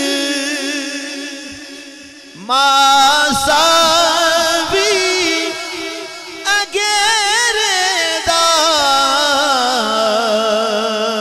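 A male voice sings a Punjabi naat in long, drawn-out, wavering notes without clear words. It fades, comes back strongly about two and a half seconds in, breaks briefly about six and a half seconds in, and fades again near the end, with a steady lower note held beneath it.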